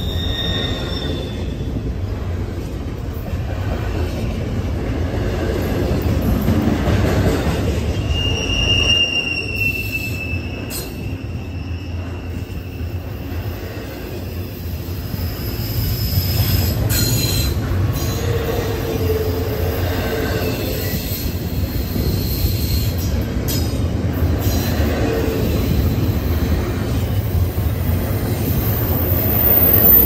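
Freight train cars rolling past close by: a steady rumble of wheels on rail, with short high wheel squeals now and then.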